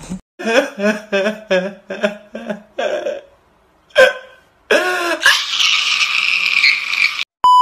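A voice makes a quick, rhythmic run of short syllables, then a short rising-and-falling vocal glide followed by a hiss of about two seconds. A steady, loud, high beep cuts in near the end.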